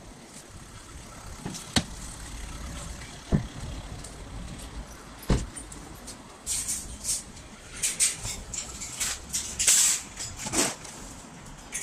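Steady background of a car park with cars, broken by a few sharp knocks. From about halfway through come repeated rattling and clattering bursts of metal shopping trolleys being handled.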